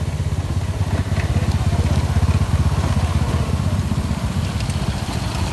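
Motor scooters riding slowly past over a rough, stony dirt track, their small engines running with a low, fast throb that is loudest about two to three seconds in as the nearest scooter goes by.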